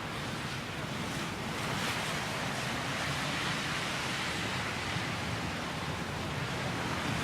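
Steady blizzard wind blowing, with gusts buffeting the microphone.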